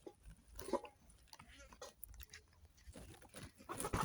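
Faint farmyard animal calls, short and scattered, among small rustles and knocks, with a louder cluster near the end.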